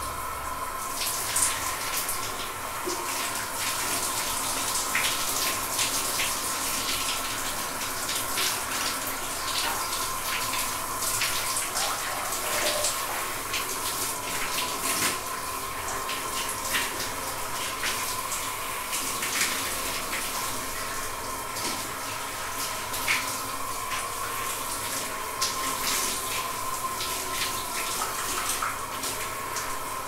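Shower running: a steady hiss of falling water spray, broken by frequent short splashes and patters, over a faint steady tone.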